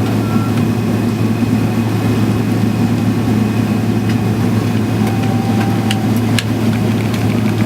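Airliner cabin noise during taxi: a steady low hum of the jet engines at idle mixed with the air-conditioning rush, with a few faint clicks about six seconds in.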